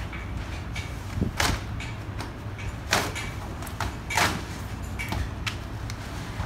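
Cardboard lid and flaps of a motorcycle shipping crate being lifted and folded back: a run of scrapes, rustles and knocks, the loudest about a second in, at three seconds and just past four seconds, over a steady low rumble.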